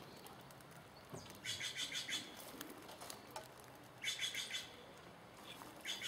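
Three short, rapid whistled trills, bird-like, each about half a second long and spaced about two seconds apart.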